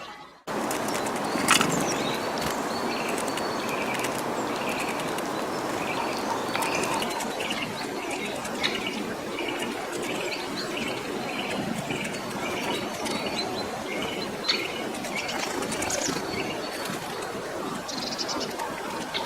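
Small birds, most likely tits, calling at a feeder: a run of short chirps repeated evenly about twice a second, fading away near the end. A few sharp clicks stand out, the loudest about a second and a half in.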